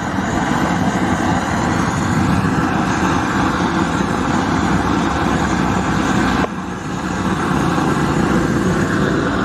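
LPG gas torch burning with a steady rushing noise, its flame played over a steel bicycle frame to burn off the paint; the noise dips for a moment about six and a half seconds in.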